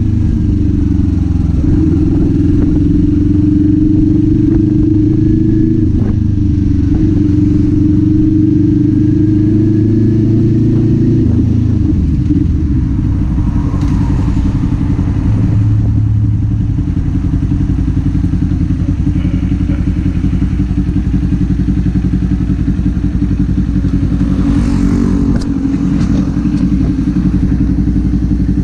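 Kawasaki Z400's parallel-twin engine and exhaust running under way. It pulls at steady revs, then drops to a lower, steadier note about twelve seconds in.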